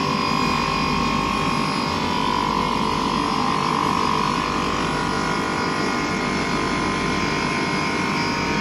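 Machinery of a large-diameter PVC pipe extrusion line running: a steady mechanical din with a high, steady whine over it.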